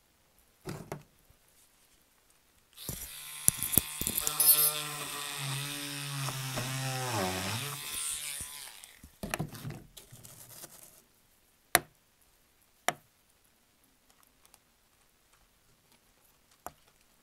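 A small handheld electric drill runs for about six seconds, boring a post hole through the layout's ground cover. Its pitch holds steady, then sags and drops as it slows before stopping. A few light clicks and handling sounds follow.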